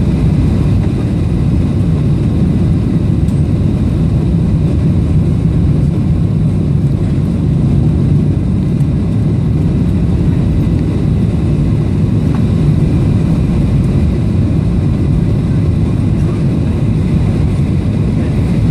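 Steady low rumble of a Boeing 737-800's CFM56-7B engines and airflow, heard inside the passenger cabin on the landing approach with the flaps extended.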